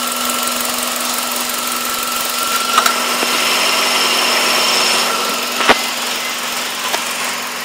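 2001 Toyota Echo's 1.5-litre four-cylinder engine idling steadily with its newly installed MechMan high-output alternator charging, a faint steady high whine over the engine hum. Two sharp clicks come about three seconds apart.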